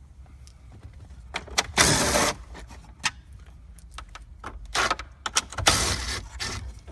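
Socket tool backing out the 7mm screws that hold the factory dash screen: three short noisy bursts of the tool working, about two seconds in, near the fifth second and again just after, with small metallic clicks between them.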